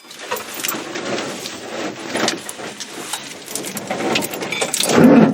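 Old VW Beetle's air-cooled flat-four being cranked on the starter, with uneven clicks and rattles. It catches about five seconds in and runs much louder.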